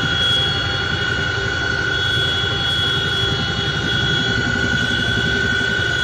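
Steady engine and rotor-free cabin-style drone of an aircraft heard from on board, with a constant high whine over a rushing noise bed.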